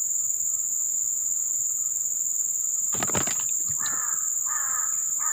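A crow cawing about three times in the second half over a steady high insect drone. A brief burst of noise comes about three seconds in.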